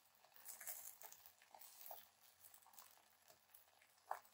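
Near silence with faint, scattered soft rustles and light ticks, typical of toppings being handled and sprinkled in a kitchen.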